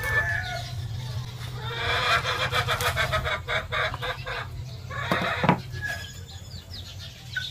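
Chickens clucking, with a few sharp knocks from a knife on a wooden chopping board around the middle.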